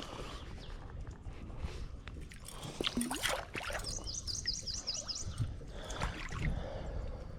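Lake water sloshing and splashing around a person wading, with a sharper splash burst about three seconds in. A bird sings a quick run of repeated high notes about a second later.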